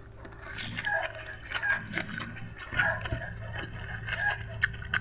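Close-up eating sounds: a mouth chewing and biting food, with many short wet clicks and small crunches, over a steady low hum.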